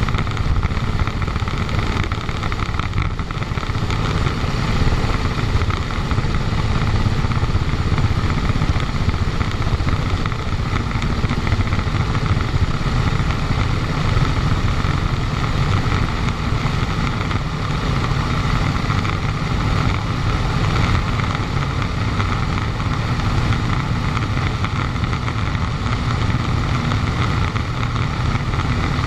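Vintage airplane's piston engine running steadily as the plane taxis on the ground: a loud, even rumble with no change in pitch.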